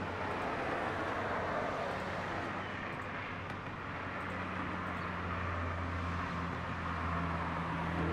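Steady low engine hum over a continuous wash of outdoor traffic-like noise.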